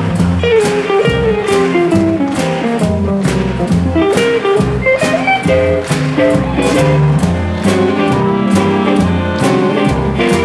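Swing jazz with guitar and a steady beat, played from recorded music through loudspeakers.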